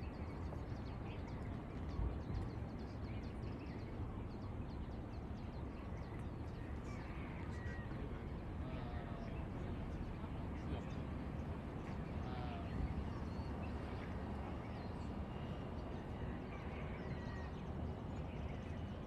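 Outdoor dawn ambience: a steady low rumble with scattered short bird calls every few seconds.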